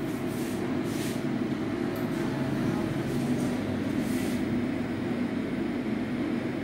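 Steady low mechanical hum of a running machine, with faint brief swishes about a second in and again about four seconds in.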